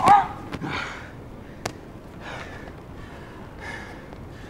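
A woman's brief laugh at the very start, then soft breathy exhalations a few times and a single sharp click about one and a half seconds in.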